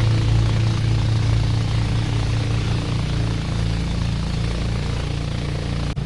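Boat engine running steadily, a low even drone. It drops out for an instant near the end.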